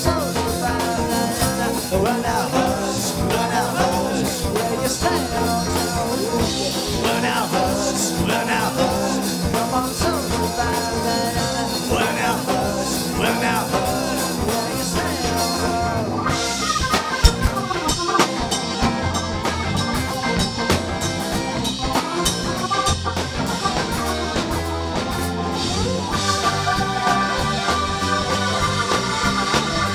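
Live rock band playing an instrumental passage: electric guitar and keyboards over bass and drums, with the Fender Telecaster lead guitar coming forward near the end.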